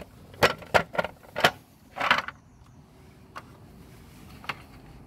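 Sharp clicks and knocks as a motorcycle's front mudguard is handled against the fork and wheel: three quick knocks in the first second and a half, a short rattle about two seconds in, then two single knocks further apart.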